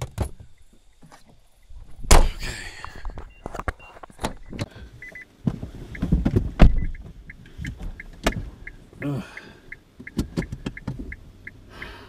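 Handling noises around a Nissan Leaf: heavy thumps of a hatch or door shutting, about two seconds in and again around six seconds, among knocks and rustles of someone settling into the driver's seat. From about five seconds in, the car's warning chime beeps about twice a second.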